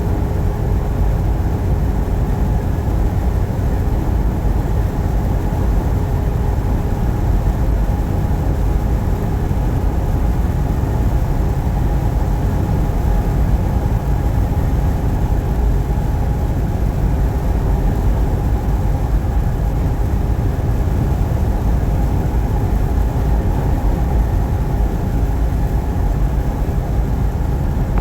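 Steady low rumble of a truck driving on the highway, engine and tyre noise with a few faint steady tones above it.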